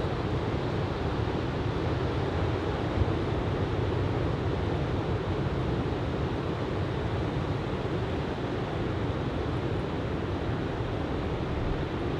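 Steady wash of surf from a typhoon swell breaking on a sandy beach, with wind rumbling on the microphone.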